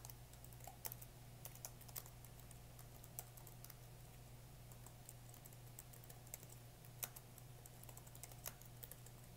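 Faint typing on a computer keyboard: irregular keystrokes over a low steady hum.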